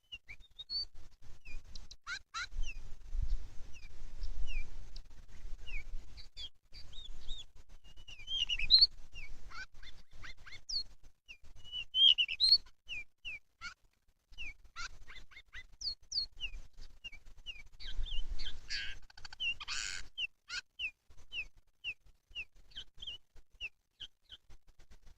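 Pied bushchat (decu) calling: a long run of short, high chirps and thin whistled notes, spaced irregularly, with a few louder scratchy bursts of notes now and then.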